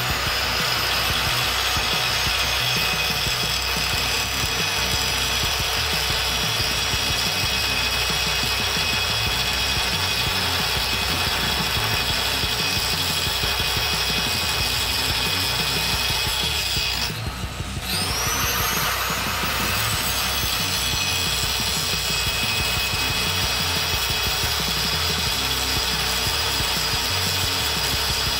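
Angle grinder with a cutoff wheel cutting through half-inch threaded metal pipe held in a vise, a steady high-pitched whine. About 17 seconds in the grinder winds down for a moment, then spins back up with a rising whine and cuts again.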